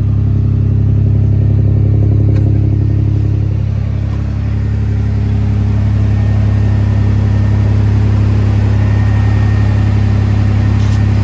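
Toyota 3.4-litre V6 (5VZ-FE), fully warmed up, idling steadily at about 800–900 rpm through a newly installed Flowmaster FX muffler, heard from beneath the truck beside the exhaust pipes. The freshly welded exhaust shows no leaks.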